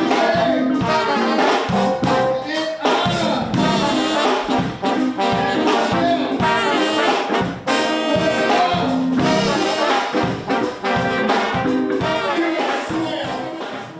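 Brass-led music, trumpets and trombones, over a steady beat.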